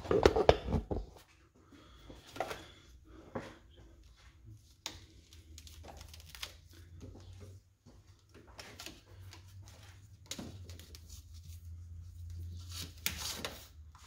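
Handling noises as a wiring harness is pushed and pulled into place in a truck's engine bay: scattered rustles, clicks and knocks, loudest in the first second, with a faint low steady hum through the second half.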